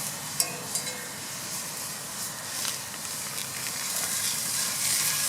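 Food sizzling in a hot cast iron skillet on a grill, a steady hiss that grows louder toward the end, with a few light clicks in the first second.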